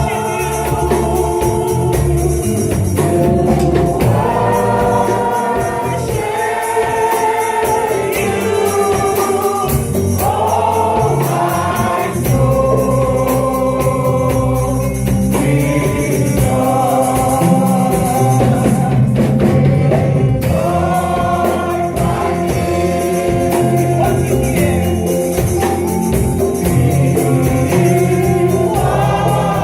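Gospel choir singing with a band, a tambourine keeping a steady beat.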